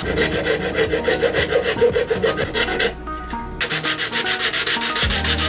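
Fast back-and-forth strokes of a hand rubbing on plywood, in two runs with a short break about three seconds in.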